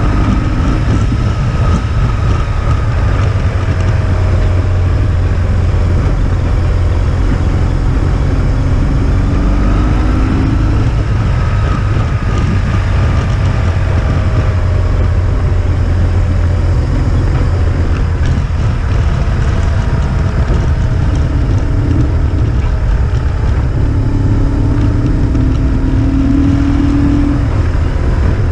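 Road vehicle's engine running under way on the move, its pitch slowly rising and falling with the throttle, under a heavy low rumble of wind and road noise on the mounted camera's microphone.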